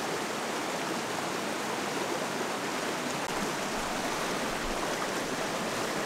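Steady rushing of a shallow, fast-running river.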